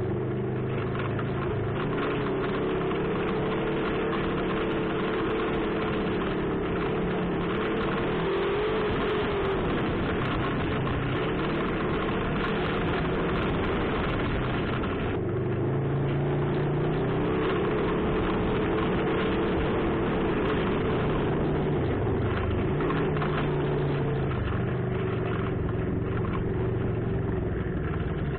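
Off-road vehicle engine running while driving a dirt trail, its pitch rising and falling several times with the throttle, over a steady rush of noise.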